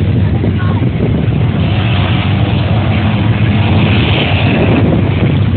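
Pickup truck's engine running hard as it drives through a mud pit, a steady loud rumble with no let-up.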